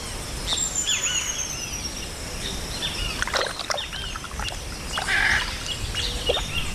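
Several birds calling over a steady outdoor background: many short chirps and curved whistles, with one long, slowly falling high whistle about half a second in and a harsher call around the five-second mark.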